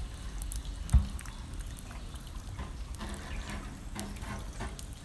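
Floodwater sloshing and trickling as a person wades and shifts a large clay water jar through it, with one dull thump about a second in.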